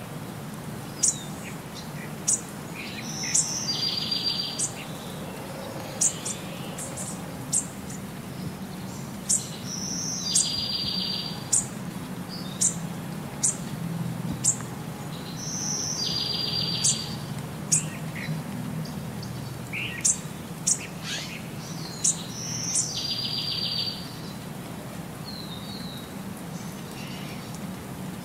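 Birdsong ambience laid over the clips as a loop: short sharp chirps and a buzzy, rapidly pulsed trill, the same pattern coming round about every six and a half seconds, over a steady low rumble.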